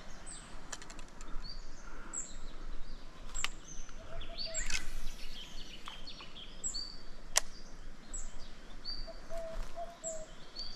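Birds calling: many short, high chirps and falling whistles, with a few sharp clicks in between, the loudest about two thirds of the way through.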